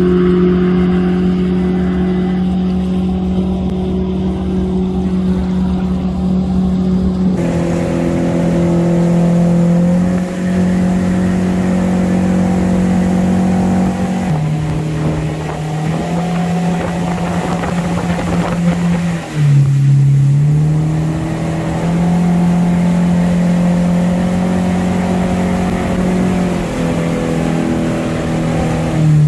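Mercury outboard with a water-jet drive running hard as the boat planes at speed, with water and wind noise under it. It is heard from the bank at first, then from inside the helm. The engine pitch steps down a little partway through, dips briefly about two-thirds of the way in, and starts to fall right at the end as the throttle is eased.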